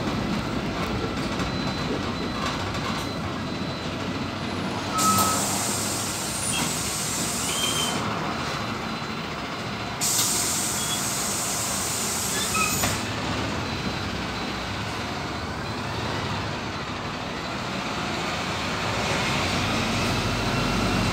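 PAZ 320414 bus running, a steady engine and road noise, with two hisses of compressed air from the bus's air system, each about three seconds long and a couple of seconds apart.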